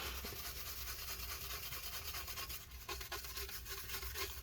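Small brush scrubbing in quick, rapid strokes across a laptop circuit board, cleaning off white, powdery corrosion left by a liquid spill.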